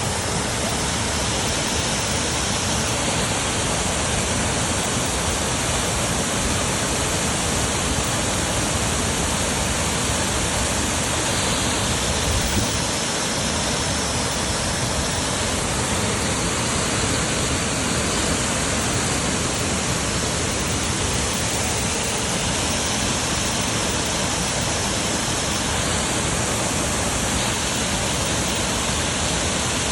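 River water rushing, a loud, steady, even hiss of flowing water.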